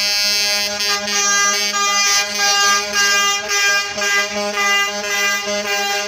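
Air horns of cement mixer trucks sounding continuously: a chord of several tones in which some notes hold steady while others change every fraction of a second.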